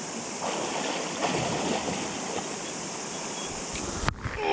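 Flowing river water, a steady rushing hiss, which cuts off abruptly near the end.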